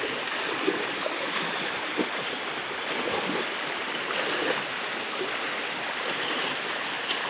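Shallow stream water running, with sloshing and light splashes as people wade and drag a fishing net through it.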